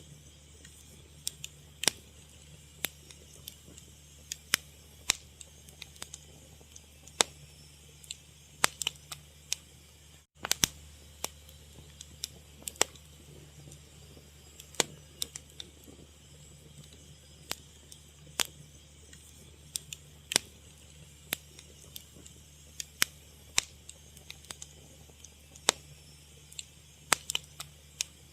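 Wood fire crackling: irregular sharp pops, about one or two a second, over a faint steady hiss and low hum. The sound drops out for an instant about ten seconds in.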